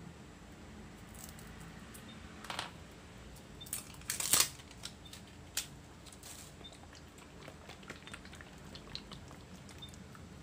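Clicks and knocks from a bottle of pla ra (fermented fish sauce) being handled and uncapped. A cluster of sharp knocks a little past four seconds in is the loudest, followed by light scattered ticks.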